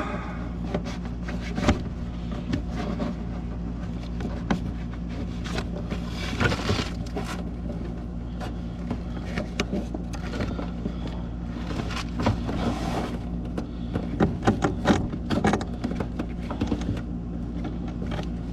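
Clicks, scrapes and small metal clanks of hand pliers working a spring hose clamp and drain hose fittings on a furnace, over a steady low hum.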